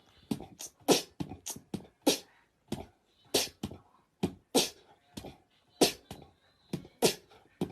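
A run of short, sharp clicks or taps, irregularly spaced at about two to four a second.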